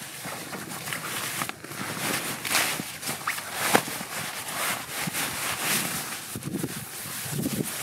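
Nylon gear and a stuff-sacked down sleeping bag rustling and knocking as they are dug out of a backpack, in irregular swishes with a sharp click about halfway through.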